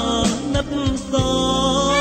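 A song: a sung melody holding long notes over a band with a steady drum beat.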